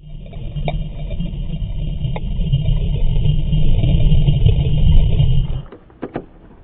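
Loud, muffled low rumble of water churning around a camera held underwater in a swimming pool, with a faint steady high whine over it, cutting off abruptly about a second before the end. Two short clicks follow.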